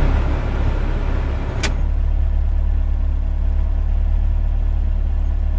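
Toyota 4A-GE 16-valve inline-four engine running steadily. A sharp click comes about one and a half seconds in, after which the engine sound is steadier and duller.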